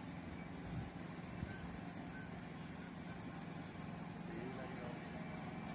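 Battery-powered shunting locomotive, converted from an old electric locomotive, moving slowly with a steady low hum. A couple of light knocks come in the first two seconds.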